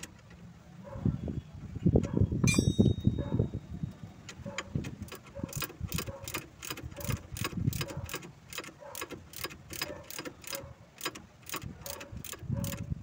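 Ratchet wrench clicking steadily, about three clicks a second, as a nut is run down on the bolt of a transmission support rubber mount. There is a single metallic clink a couple of seconds in, and a low rumble of wind on the microphone in the first few seconds.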